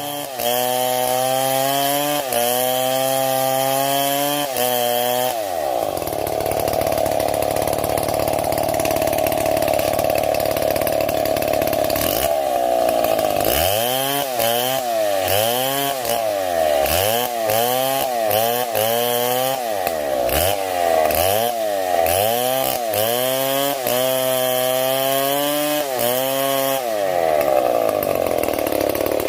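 Stihl MS 070 two-stroke chainsaw running hard while cutting wood. Its engine pitch repeatedly dips and recovers, about once a second, for the first few seconds and again through most of the second half, with a steady high-revving stretch in between and near the end.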